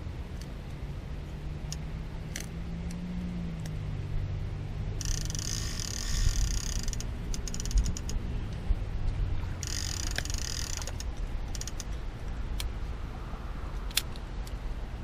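Fishing reel being worked, in two mechanical runs about two seconds and one second long, over a low steady hum.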